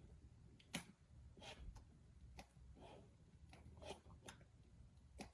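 Scattered clicks of computer controls being pressed, about one a second, some sharp and some softer.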